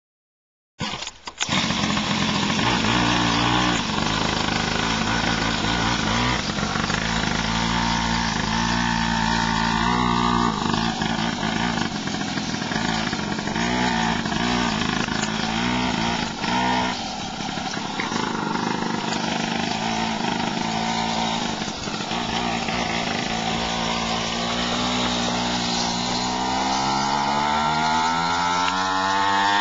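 Engine running steadily at a low, slightly wavering pitch, then rising in pitch over the last few seconds as it is revved up.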